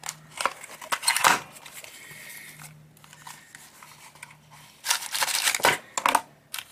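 A small cardboard box being opened by hand: paperboard scraping and rustling as the end flap is worked open about a second in, then louder crinkling of a plastic bag near the end as the servo in it comes out of the box.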